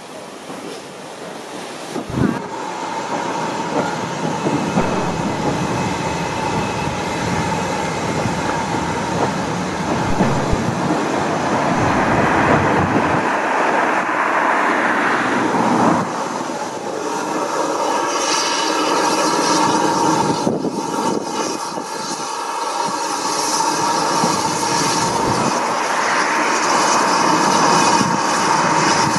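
BR Standard Class 2MT 2-6-0 steam locomotive 78019 and its coach passing slowly over the pointwork below: a steady rail rumble with wheel clatter and a thin wheel squeal. From about 18 s in, steam hiss joins as the locomotive comes through.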